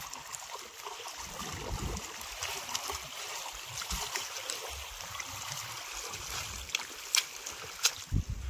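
Shallow water sloshing and splashing around wading feet and a mesh net bag of rohu dragged through it, uneven with each step. A few sharp taps and a low thump near the end.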